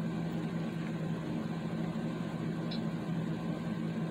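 Steady low background hum of room noise with no speech, unchanged throughout, with a single faint click about two-thirds of the way in.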